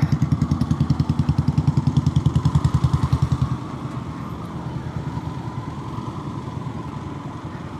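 Motorcycle engine running with a rapid, even pulse, picked up by a helmet-mounted mic with noise reduction off. It is louder for about the first three and a half seconds, then eases to a softer level.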